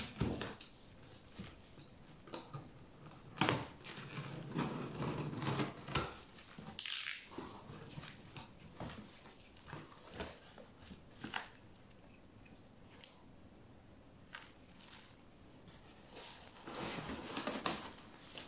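Hands opening a cardboard box: scraping and rustling of cardboard flaps and packing tape, with scattered knocks and a short tearing sound about seven seconds in.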